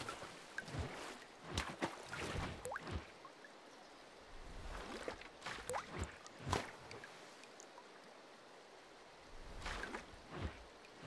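Water sound effects of drips, splashes and bubbly plops, coming in scattered clusters with short quiet gaps between them.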